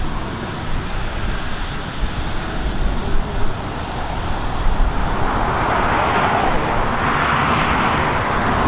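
Jet airliner engine noise swelling from about five seconds in and holding loud, over a steady background of road traffic and an uneven low rumble.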